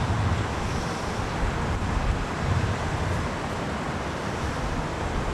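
Steady, broad rumble of an MD-11F freighter's three turbofan engines as the jet comes in to land.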